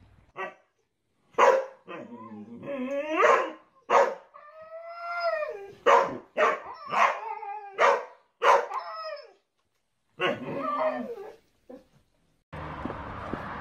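A husky and a boxer puppy vocalising in play: a run of sharp barks mixed with drawn-out, wavering howl-like calls, one held for over a second and falling off at the end.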